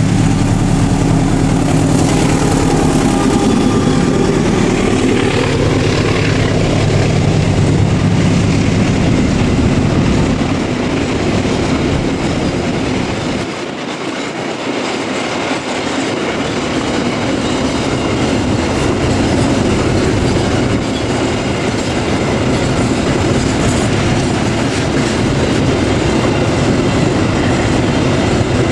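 Diesel locomotive hauling a container freight train passes close by, its engine sound sliding down in pitch as it goes. The loaded container wagons then roll past in a steady, loud rolling rumble. The low rumble dips briefly about halfway through.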